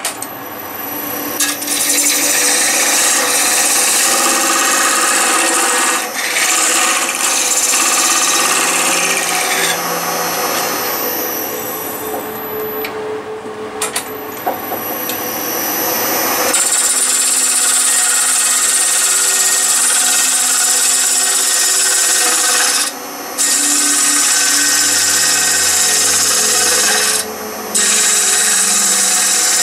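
A gouge cutting a spinning block of ash wood on a wood lathe: a loud, continuous scraping hiss as shavings come off. It breaks off briefly three times, about 13, 23 and 27 seconds in.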